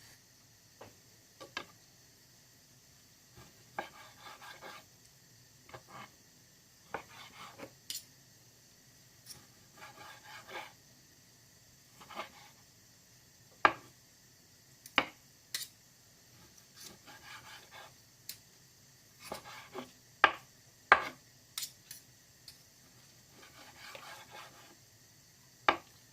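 Kitchen utensils and dishes being handled: irregular sharp knocks and clinks, a few of them louder, with short spells of scraping and rattling in between.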